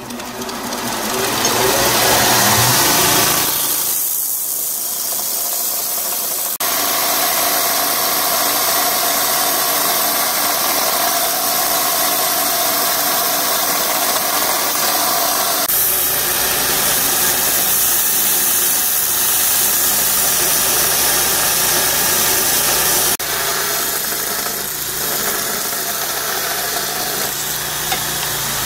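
Allwin Grind Force belt grinder spinning up with a rising whine over the first couple of seconds, then running steadily. 5160 leaf-spring steel is ground against the abrasive belt, adding a loud grinding hiss.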